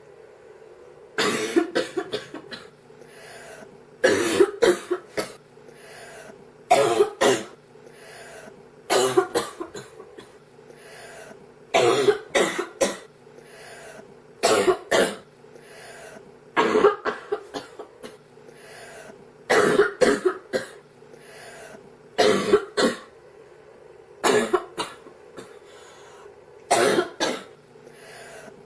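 A girl coughing from a cold in repeated short fits of two to four dry hacking coughs, one fit about every two and a half seconds: a persistent cold cough.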